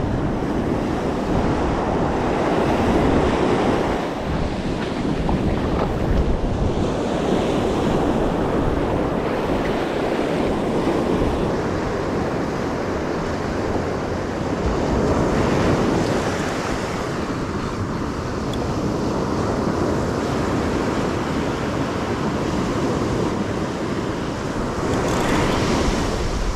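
Ocean surf breaking and washing up the sand, swelling and easing every few seconds, with wind buffeting the microphone.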